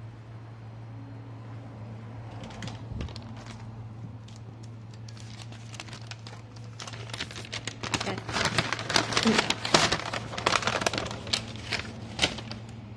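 Dense crinkling and clattering for about five seconds from the middle on, loudest near its middle: handling at a self-serve bin of hard dry dog biscuits with a metal scoop. A low steady hum runs underneath.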